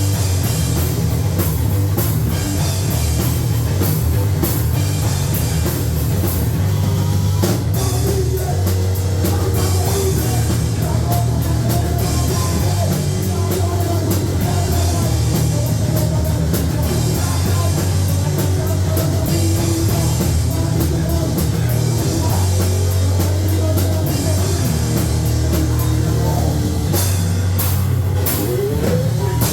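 Live rock band playing loud and heavy: drum kit hits over distorted guitar and bass, with a heavy low rumble throughout.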